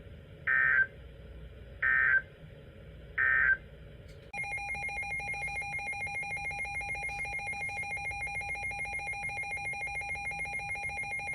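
Three short bursts of EAS (SAME) digital data tones from NOAA Weather Radio, the end-of-message signal that closes a warning. About four seconds in, a rapidly pulsing electronic alert tone starts and holds steady; the data bursts are the loudest sounds.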